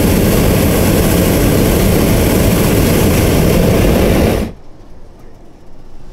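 Hot air balloon's propane burner firing with a loud, steady rushing blast, shut off abruptly about four and a half seconds in.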